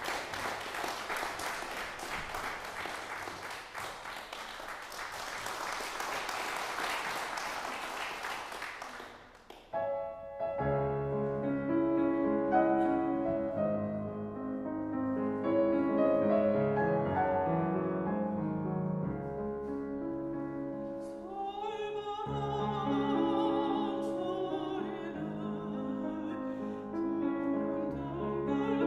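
Audience applauding for about nine seconds, then a brief hush and a solo piano playing the introduction of a Korean art song.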